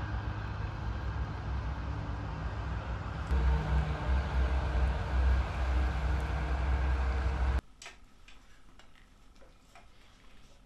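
Outdoor ambience: a steady low rumble and hiss, joined about a third of the way in by a faint engine-like hum. About three-quarters in it cuts off abruptly to quiet indoor room tone with a few light clicks.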